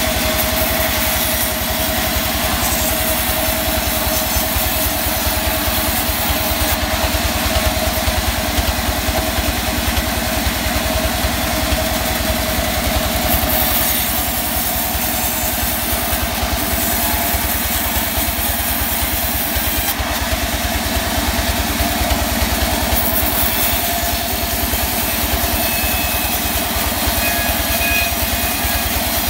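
Band sawmill running as its blade cuts through a mahogany log: a steady machine drone with a fast even pulse, under a high sawing hiss that swells and fades several times.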